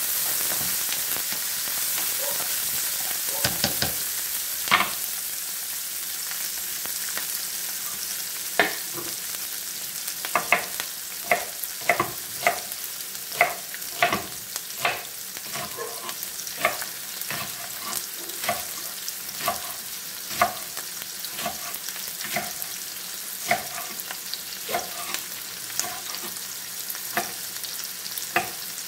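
Chopped onion, garlic and tomato sautéing in oil in a nonstick pan: a steady sizzle, stirred with a spatula in the first few seconds. The pan is then left to fry, with sharp pops of spattering oil about once or twice a second.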